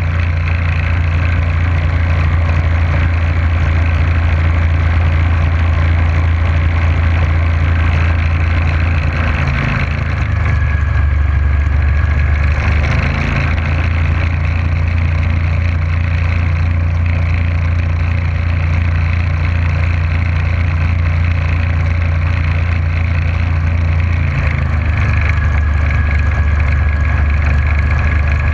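Motorboat engine running steadily under way, over a constant rushing hiss. The engine note dips slightly about ten seconds in, comes back up a few seconds later, and dips again near the end.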